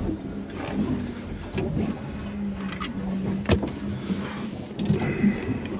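A boat's motor humming steadily, with a single sharp knock about three and a half seconds in.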